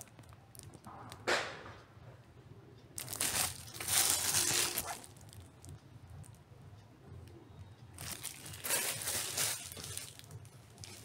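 Clear plastic wrapping crinkling as a plastic-wrapped vinyl LP record and its jacket are handled, in three rustling spells: a short one about a second in, a longer one from about three to five seconds, and another near the end.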